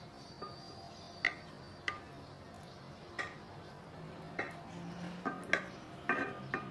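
Kitchen knife clicking and tapping against the bottom of a glass baking dish as it is pressed down through a soft chocolate semolina cake. About ten short, sharp clicks come at uneven intervals, with a few closer together near the end.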